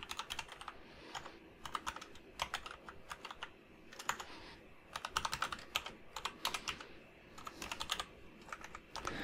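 Typing on a computer keyboard: keystrokes come in quick bursts separated by short pauses.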